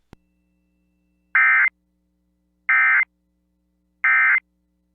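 EAS end-of-message signal on NOAA Weather Radio: three short bursts of SAME digital data, a harsh two-tone warble around 1.5 to 2 kHz, each about a third of a second long and spaced about 1.3 seconds apart. The bursts mark the end of the alert message.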